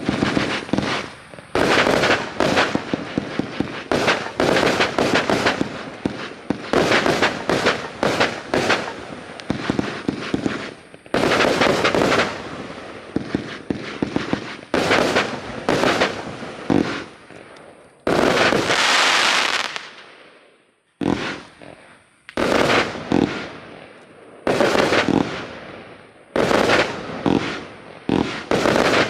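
NICO Delta Fire V144, a 144-shot compound firework battery, firing: rapid volleys of sharp launch shots and breaks, separated by brief pauses, with a longer rushing burst about two-thirds of the way through.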